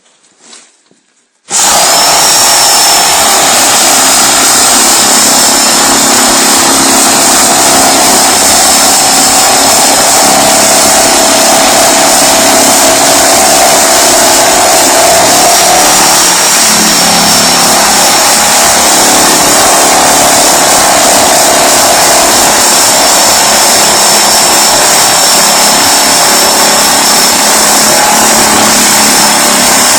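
A power tool starts abruptly about a second and a half in and runs loud and steady, with a constant high whine over the noise.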